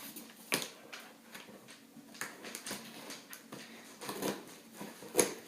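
Faint scattered clicks and scrapes of scissors being handled and worked at a cardboard package, with a sharper click about half a second in and another near the end.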